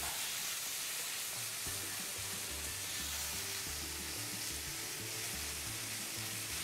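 Thin chicken strips searing in hot oil in a frying pan: a steady sizzle, with the scrape of a silicone spatula stirring them.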